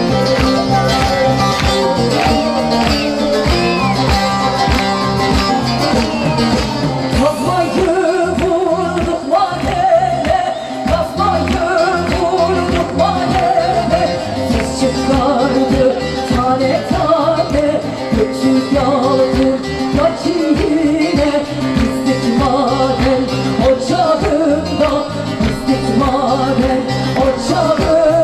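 A folk song played by a band with singing, the melody wavering over a steady accompaniment.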